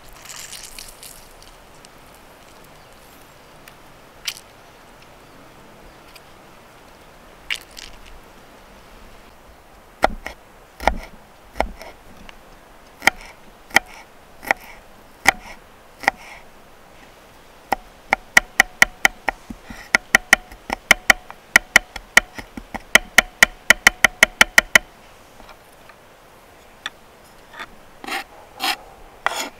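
Kitchen knife chopping garlic on a wooden cutting board: a few single cuts at first, then a fast, even run of chops at about three or four a second lasting some seven seconds, and a few softer strokes near the end.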